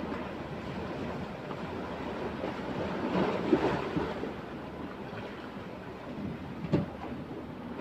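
Sea waves washing on the rocks with wind on the microphone, swelling briefly a few seconds in. Near the end a single sharp knock as the plastic cooler box's lid is shut.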